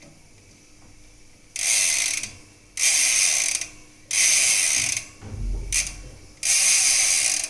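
Bicycle rear ratchet hub (DR-109) freewheeling, its pawls clicking so fast they make a loud buzz. It comes in four bursts of about a second each as the wheel is spun and left to coast. This hub's freewheel is far louder than a quieter ARC hub's.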